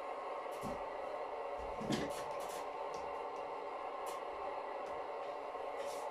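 O gauge model train running on the layout: a steady motor hum with scattered light clicks of wheels over rail joints and points, and a soft thump about two seconds in.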